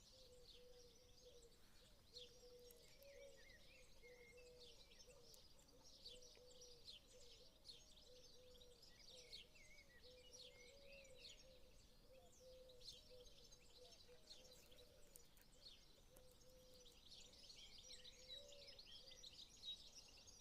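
Faint chorus of many small birds chirping and twittering over one another, with a series of short, low, wavering notes repeating underneath.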